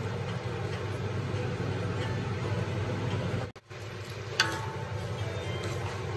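Spaghetti being tossed and stirred in a steel wok with a wooden spatula, with a light sizzle over a steady low background noise. A sharp knock with a short metallic ring sounds against the wok shortly after a brief dropout about three and a half seconds in.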